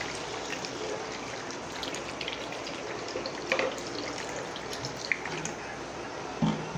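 Water poured into a pan of chicken masala on the stove, making a steady hiss with a few light clicks.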